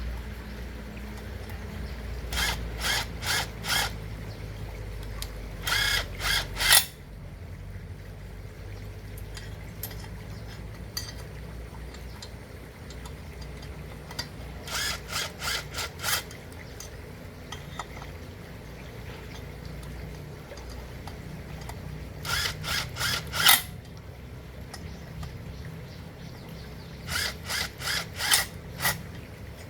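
Handheld power tool run in short blips: five groups of three to five quick bursts, several seconds apart, during work on a chainsaw.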